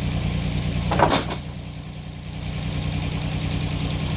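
Sawmill engine running steadily. About a second in there is one brief, loud clatter; the overall sound then drops for a second or so before picking back up.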